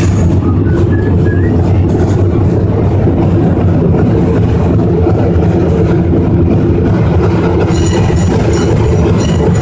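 San Francisco cable car heard from on board as it runs along its track, a loud, steady rumble and rattle from the car and the cable line. High metallic squealing sets in near the end.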